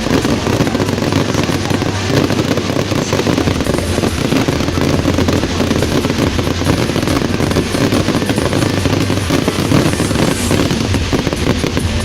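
Fireworks going off in a dense, continuous barrage: rapid cracks and bangs following each other without pause.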